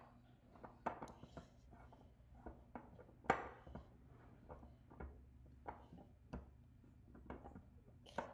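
Hands kneading stiff flour-and-salt clay dough in a glass mixing bowl: faint, irregular taps and knocks of hands and dough against the glass, with a few sharper knocks.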